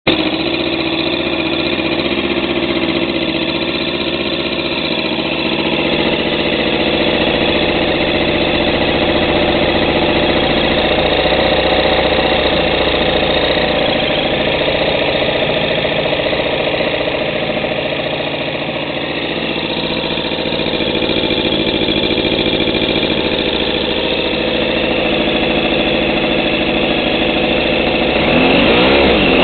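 Small engine of a homemade twin RC boat running steadily. Its pitch wavers slightly around the middle, then revs up and down quickly near the end.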